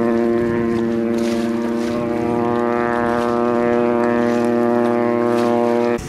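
One long, steady blast of a ship's horn, a deep, even tone held without a break.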